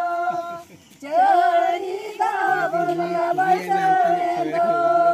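Women singing together, with long held notes and some sliding, bending phrases; the singing drops out briefly a little under a second in, then comes back.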